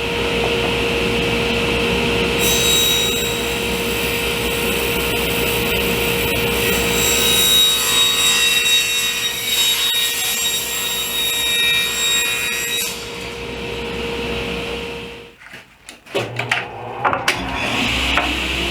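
Table saw running and cutting through a pine board for about ten seconds, then shutting off about fifteen seconds in. A few sharp knocks follow, and a motor starts up again near the end.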